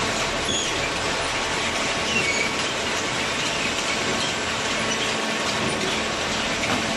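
Steady clattering industrial machine noise with short, high metallic squeals scattered through it, from a cardboard baler at work.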